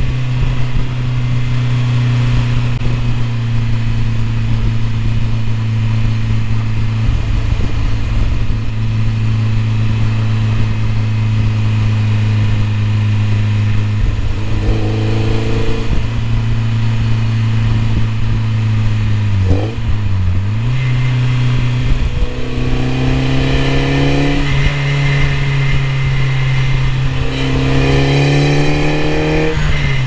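BMW E30 M3's four-cylinder engine under way, holding steady revs for a long stretch, then pulling up in pitch several times. About two-thirds through, the revs dip and jump back during a gear change, and near the end a rising pull is cut off by a sudden drop in pitch as it shifts.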